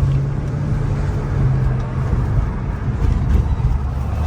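BMW E60 550i's V8 engine and road noise heard from inside the cabin while driving, the engine running smoothly now that its misfiring ignition coils have been replaced. A steady low engine drone for about the first second gives way to a dense low rumble.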